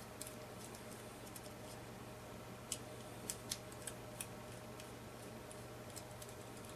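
Small screwdriver tightening the brass needle guide inside an Iwata Neo airbrush body: faint, irregular little metallic clicks and ticks, a cluster of them in the middle, over a faint steady hum.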